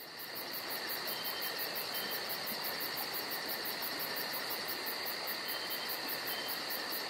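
Insect chorus, like crickets, fading in: a steady high buzz with a very high chirp pulsing about five times a second.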